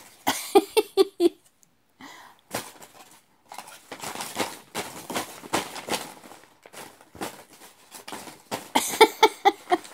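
Sheets of printed paper rustling and crinkling as a baby grabs and scrunches them. Two runs of short rhythmic vocal sounds come through, one about half a second in and one near the end.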